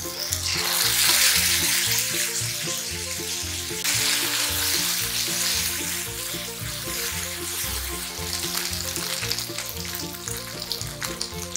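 Chicken pieces sizzling in a nonstick frying pan as a soy sauce, sake and gochujang seasoning mix hits the hot pan and is tossed with a spatula while it reduces to a glaze. The sizzle surges about half a second in and again about four seconds in.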